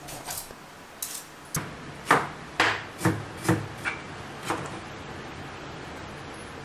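Crinkle-cut (zig-zag) knife chopping carrot on a wooden chopping board: about eight knocks, roughly two a second, stopping about two-thirds of the way through.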